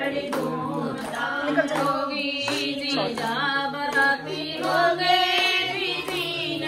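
An Indian-style song: a woman's singing voice over music with a steady low held note underneath.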